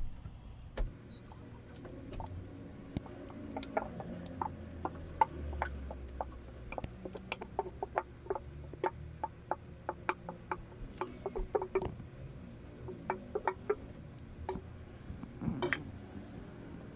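Wooden spatula scraping and tapping against a mixing bowl and a metal baking pan as thick grated-cassava batter is scraped out and spread: a run of small, irregular clicks, with one louder knock near the end.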